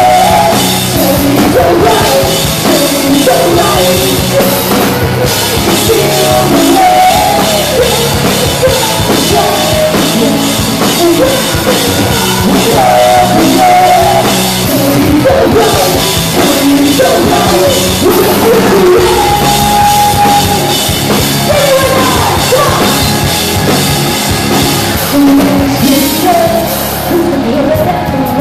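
Live rock band playing loud: a woman sings lead over a full band with a drum kit.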